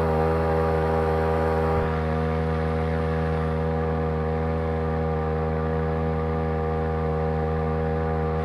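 A two-stroke Champion T516 trimmer engine, fitted as the powerhead of a homemade outboard on a Sailor 2.0 lower unit, running steadily at one constant speed with a high, even drone.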